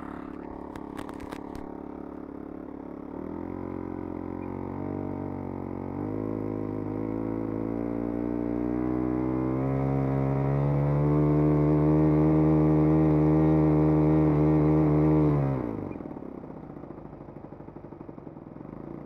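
Model aircraft engine in a scale Hurricane running on the ground: it idles, is throttled up in steps to a steady high rev, then drops quickly back to a low idle near the end.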